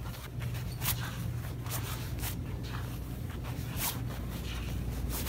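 Shopping cart rolling down a store aisle: a steady low rumble with irregular sharp clicks and rattles.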